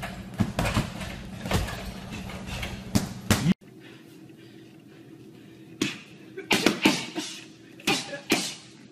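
Boxing gloves hitting punching bags. A quick run of punches plays over a low steady hum, then the sound cuts off suddenly. After that, scattered punches land on hanging heavy bags, a few in fast combinations.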